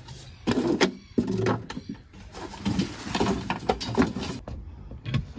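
Irregular knocks, scrapes and brushing noises of cleaning up sanding dust and debris: things being moved about, wiped and swept.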